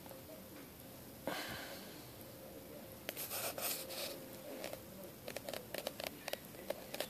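Scattered clicks and rustling handling noise, thickening after the first few seconds, over a faint steady hum.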